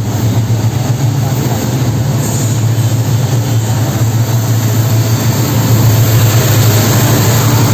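Diesel locomotive hauling a goods train slowly past, its engine running with a steady low drone that grows a little louder about six seconds in as the locomotive and its container wagons go by.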